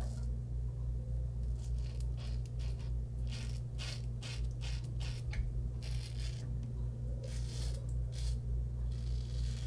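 Merkur 34G double-edge safety razor with a Wilkinson Sword blade scraping through stubble and shave-cream lather in a series of short, irregular strokes. A steady low hum runs underneath.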